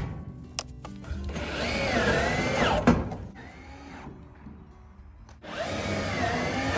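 Cordless drill driving screws into corrugated sheet-metal siding, running in two bursts, about a second in and again near the end, its whine dipping and rising in pitch as the load changes.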